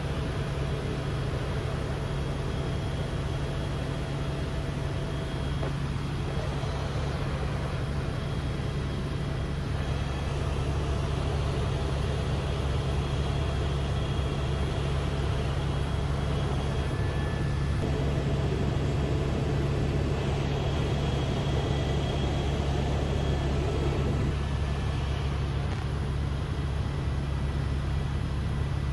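Steady helicopter cabin noise in flight: an even low drone from the engine and rotor, with faint steady high tones above it.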